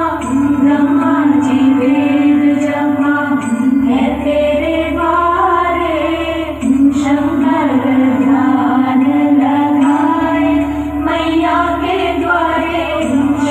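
A song with a woman singing, backed by a chorus and instruments over a steady low drone, with a light beat about once a second.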